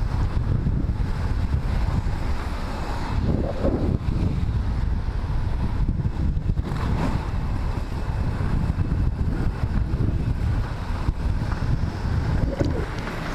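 Wind buffeting the action-camera microphone while skating, over the steady roll of inline skate wheels on asphalt.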